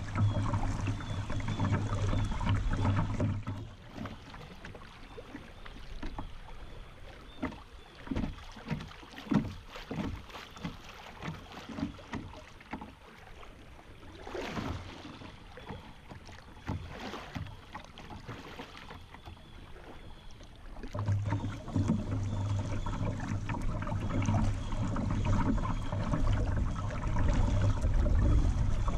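Kayak moving down a river current, with water lapping and splashing against the hull in small irregular splashes. A steady low rumble is there at the start, drops away after a few seconds, and comes back about two-thirds of the way in.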